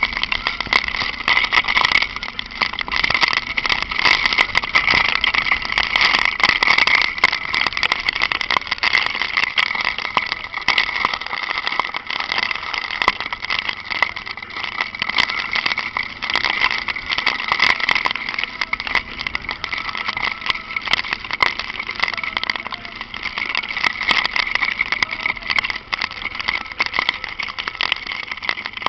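Honda Falcon 400 motorcycle ridden in light rain: a steady rushing of wind and wet road noise, with many small ticks throughout.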